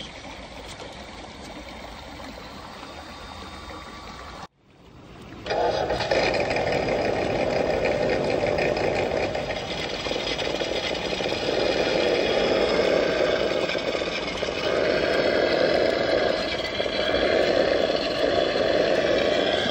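An engine sound that starts up about five seconds in, after a few seconds of quieter background noise and a brief break, then runs steadily at a fairly constant pitch.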